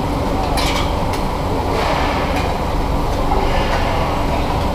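Workshop din: a steady low rumble with a faint hum, broken by several short bursts of hiss in the first two seconds.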